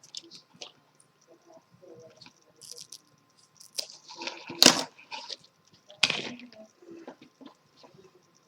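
Irregular rustling and scraping of PET braided sleeving being pushed and pulled along a speaker cable by hand, with louder scrapes about four and a half and six seconds in.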